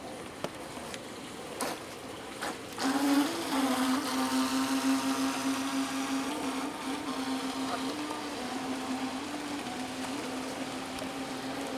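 Small radio-controlled model boat's motor whining steadily as the boat runs across the pond, starting about three seconds in, its pitch wavering slightly. A few light knocks come before it starts.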